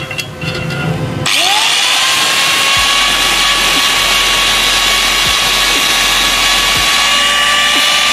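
Electric angle grinder spinning up about a second in, then running at a steady high whine while its disc grinds a steel bicycle chain link.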